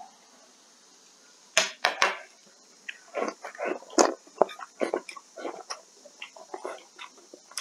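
A few sharp clicks of chopsticks against a ceramic rice bowl, then close-miked eating: rice and meat shovelled into the mouth and chewed in quick, irregular bites.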